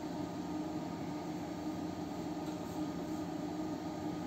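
Steady electrical hum with a few held tones over a noisy rush, from the ORC BAE-282B mercury-lamp power supply unit running powered up under test.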